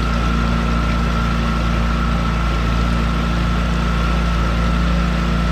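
Small hired motorboat's engine running steadily under way: a constant low drone with a thin steady whine above it.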